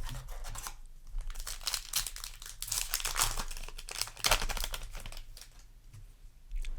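Foil wrapper of a trading-card booster pack crinkling and tearing as it is opened by hand, in spells of crackly rustling with the loudest burst about four seconds in.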